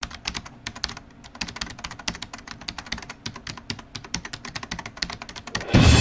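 Rapid, irregular clicking like keyboard typing, about ten clicks a second. Music starts just before the end.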